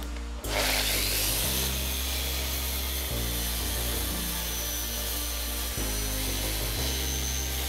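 Electric random orbit sander running steadily across the end grain of a hardwood cutting board, a continuous hiss with a faint high whine that starts about half a second in. Background music plays underneath.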